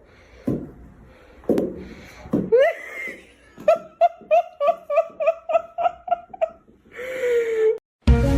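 A voice in short pitched calls, then a quick run of about ten short pitched pulses, three or four a second, and one longer falling note near the end.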